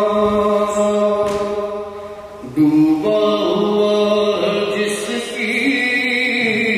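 Slow vocal chant: a voice holding long, steady notes, which fades briefly about two seconds in before a new, higher note enters.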